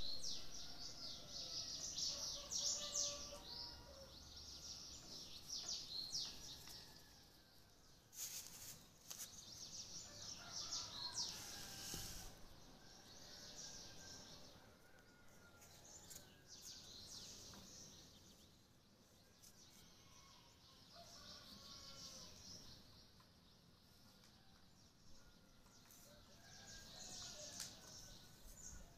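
Small birds chirping in clusters of quick, high chirps, fading in and out, with a couple of brief knocks about eight and twelve seconds in.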